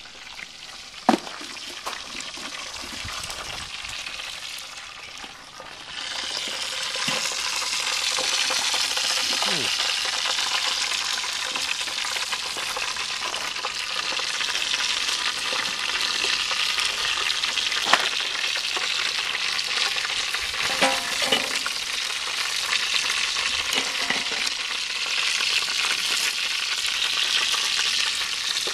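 Whole turkey roasting over a burning charcoal fire in a kettle grill: a steady sizzle and hiss of the meat and flames, which rises sharply about six seconds in after a quieter opening. A few light knocks stand out now and then.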